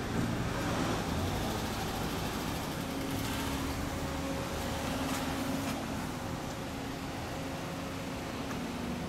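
Honda NSR250R's two-stroke V-twin idling steadily through its Dog Fight expansion-chamber exhaust, holding an even pitch with no revving.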